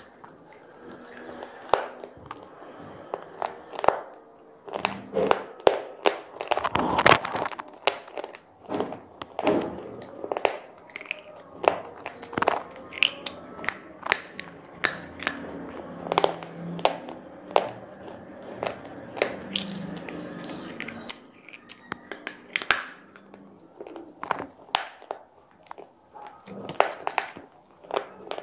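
Hard square slate pieces bitten and chewed: an irregular run of sharp crunches and cracks, several a second, as the brittle slate snaps and grinds between the teeth.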